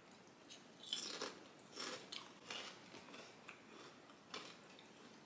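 Faint crunching of Piatos cheese-flavour potato chips being bitten and chewed: a run of short, irregular crunches starting about a second in and dying away near the end.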